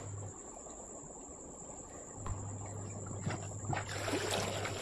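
Crickets trilling steadily on one high pitch, over a low hum that cuts out for about two seconds early on and returns. A few sharp knocks and a short rush of noise come near the end.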